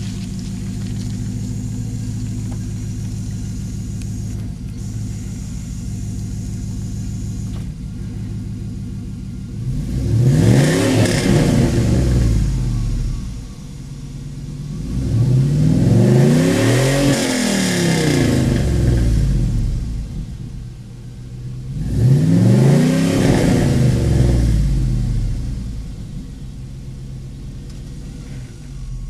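2003 Dodge Dakota Quad Cab's 4.7-litre V8 with performance upgrades, idling steadily, then revved three times about a third of the way in, each rev rising and falling back to idle; the middle rev is held longest.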